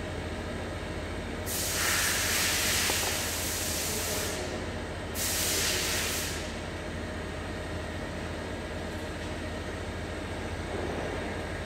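Steady low mechanical hum, broken twice by loud bursts of hiss: one of nearly three seconds about a second and a half in, then a shorter one about five seconds in, each starting and stopping sharply.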